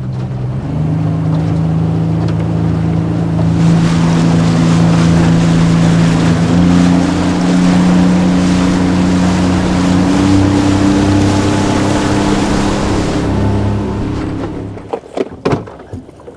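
Small motorboat's engine running under way, stepping up in pitch about a second in, with a rush of wind and water over the chop. Near the end it is throttled back and fades away, followed by a few knocks.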